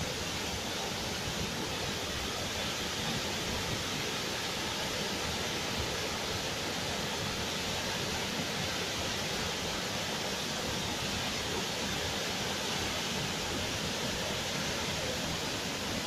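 Wide waterfall pouring over a rock ledge into a pool: a steady, unbroken rush of falling water.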